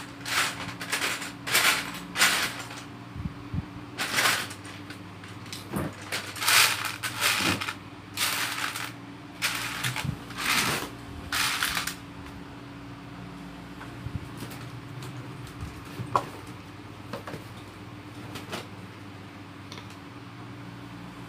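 Loose plastic Lego bricks rattling as hands rummage through them for a piece, in short bursts for about twelve seconds, then stopping. A steady fan hum runs underneath, with a few light clicks near the end.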